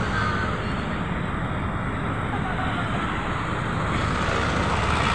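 Steady road traffic noise from cars passing on a busy city road.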